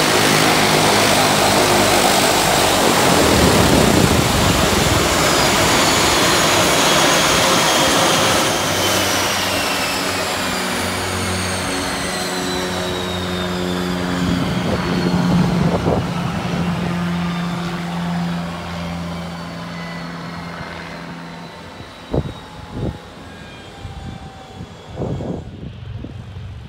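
Dash 8-300 turboprop's engines spooling down at shutdown: a loud roar with a turbine whine that falls steadily in pitch and fades. A few short knocks come near the end.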